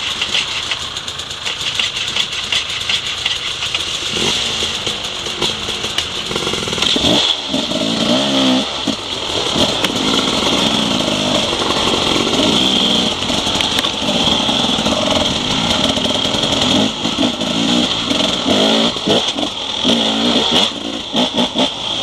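Enduro dirt bike engine running and revving as the bike pulls away and rides on. The engine note rises and falls with the throttle, most plainly about seven to nine seconds in.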